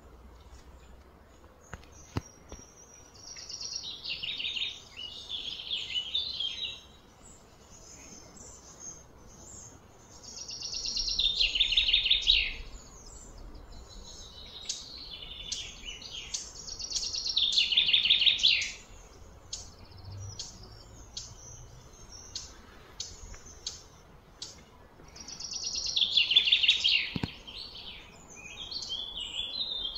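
Repeated high-pitched trilled calls in four bursts of two to three seconds each, every burst swelling and then stopping, over a low steady outdoor background.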